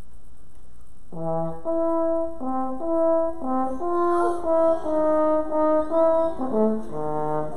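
French horn played solo: a melody of short and held notes that begins about a second in.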